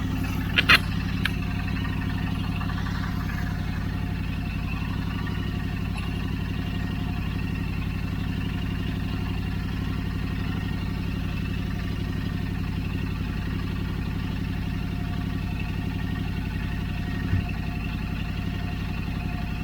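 Royal Enfield Interceptor 650's parallel-twin engine idling steadily through Powerage stainless slip-on silencers, which are leaking at the muffler-to-pipe joint. There is one sharp knock about a second in.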